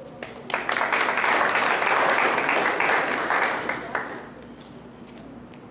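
Audience applauding: a burst of clapping that starts about half a second in, holds steady for about three seconds, and dies away about four seconds in.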